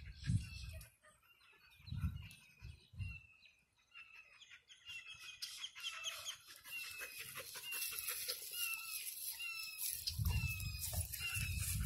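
A bird calling over and over in short falling notes, about one and a half a second, getting louder from about halfway. Low rumbling thumps come at the start and again near the end.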